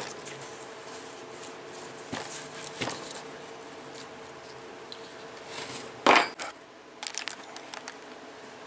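Metal hand tools clinking and clanking against a steel differential carrier and ring gear on a workbench: scattered light clicks, one loud clank about six seconds in, then a few quick small clinks.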